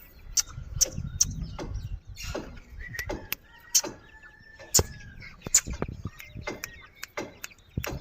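Pet parrot making a run of sharp clicks and short chirps, with a faint thin whistle held for about a second midway, over a low rumble in the first two seconds.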